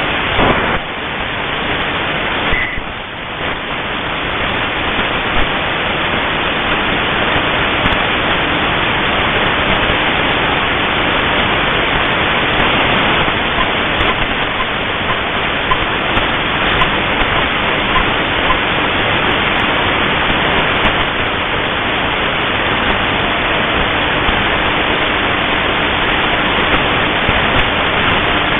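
Shortwave radio receiver hissing with steady static between stations, no signal coming through, with a faint steady low tone under the noise.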